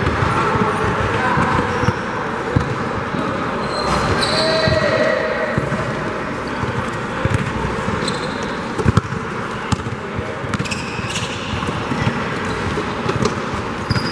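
Basketball game in play in a large gym: the ball bouncing on the court in scattered knocks, with brief high sneaker squeaks from players moving.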